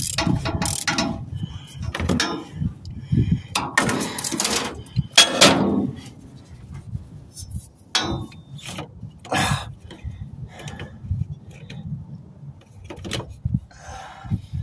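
Metal clicking, clanking and scraping as a fuel pump lock-ring tool on a socket extension is pushed down and turned against the fuel pump's lock ring. It is loudest and busiest for about the first six seconds, then thins to lighter clicks as the tool comes off and the pump top is handled.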